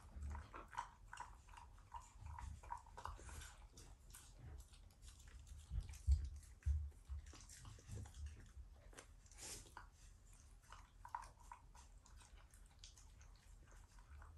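Shiba Inu eating, chewing and crunching its food in quick irregular clicks, with a couple of louder knocks about six seconds in.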